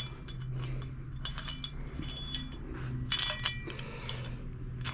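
Scattered light metallic clinks and rattles as a small-engine overhead-valve cylinder head and its parts are handled, heard over a steady low hum.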